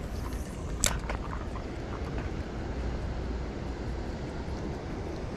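Shimano Ci4+ 3000 spinning reel cranked fast to walk a topwater lure back, a steady rough whirring close to the microphone. A single sharp click about a second in.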